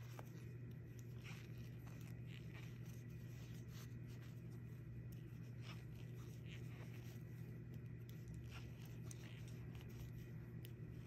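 Knitting needles faintly clicking and scraping against each other, with yarn rustling as stitches are knitted, over a steady low hum.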